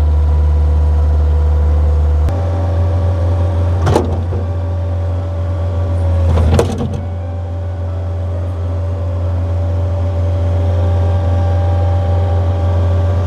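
Mustang skid steer's diesel engine running just after being started cold, without preheating; about two seconds in the engine speed steps up, and two sharp clunks come a few seconds apart.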